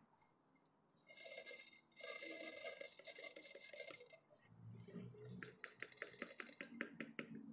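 Small black spice seeds shaken out of a small plastic container into a small metal cooking pot: a faint rattling and scratching, then a quick run of light clicks, about four or five a second, near the end.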